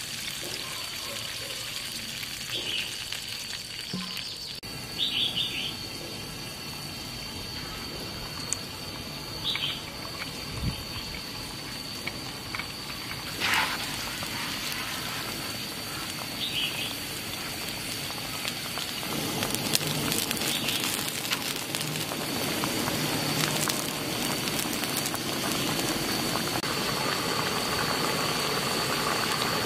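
Cola being poured into a pan of frying chicken wings, then the cola simmering and bubbling, growing louder in the last third as it comes to a rolling boil. A few short bird chirps are heard.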